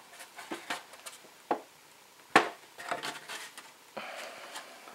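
Hands working a sealed metal ammunition tin, making a series of sharp knocks and clanks against the metal. The loudest knock comes about two and a half seconds in, and there is a short scrape about four seconds in.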